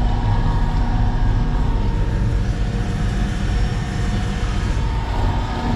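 Concrete mixer truck's diesel engine and drivetrain running steadily, pulling a heavy 6-yard load in low range, as a deep rumble with a faint steady whine above it.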